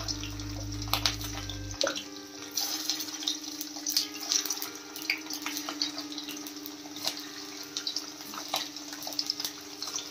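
Paneer cubes shallow-frying in hot peanut oil in a thin sheet-metal wok on a high gas flame: a steady sizzle with scattered crackles and pops.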